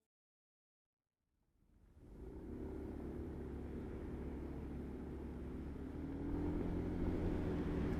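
A motor vehicle's engine running steadily. It comes in about two seconds in, after a short silence, and gets a little louder after about six seconds.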